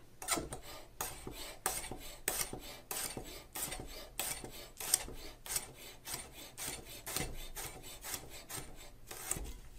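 A freshly sharpened 8-inch chef's knife slicing a white onion on a bamboo cutting board. Each stroke is a crisp cut ending in a tap of the blade on the wood, in a steady run of about three strokes a second.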